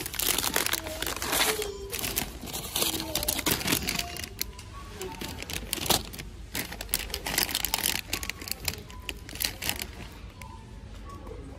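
Plastic sweet packets crinkling and rustling as they are handled and moved about in a cardboard shelf display, the rustling thinning out near the end. Music and voices run faintly underneath.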